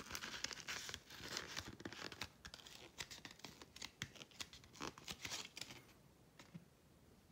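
Thin cereal-box cardboard being handled and folded in half by hand, crackling and rustling as it bends and is creased. The crackling fades out about six seconds in.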